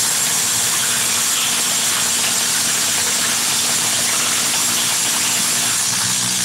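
Cordless impact driver hammering continuously under load, a loud, steady, unbroken rattle.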